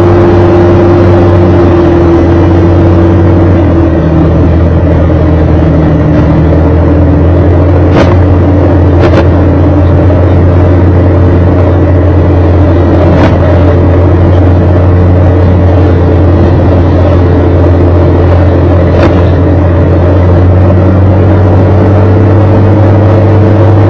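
Engine of the vehicle carrying the camera running steadily at cruising speed, mixed with loud wind and road noise. A few sharp clicks or knocks cut through it, two of them close together about eight and nine seconds in.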